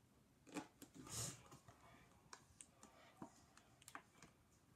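Faint handling noise: scattered light clicks and a short rustle about a second in, from small objects being moved about by hand.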